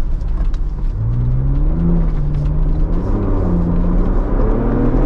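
Ford Bronco Raptor's 3.0-litre twin-turbo V6 accelerating, heard from inside the cabin: its pitch rises about a second in, dips briefly about two seconds in, then climbs again toward the end. A steady low rumble of the tyres on a dirt track runs beneath it.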